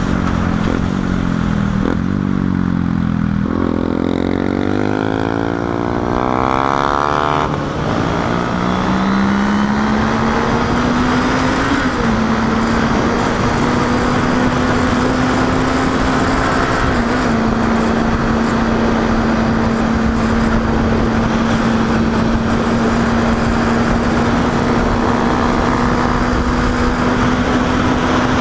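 Sport motorcycle engine accelerating under way: its pitch climbs steeply a few seconds in, drops at an upshift, climbs more gently, then holds a steady cruising note. Wind rush runs underneath throughout.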